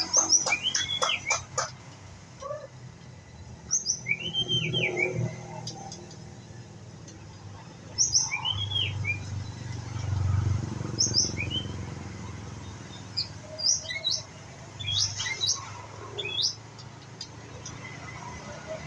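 White-rumped shama singing: short arched whistled phrases every few seconds, mixed with thin high notes and a quick run of clicks at the start.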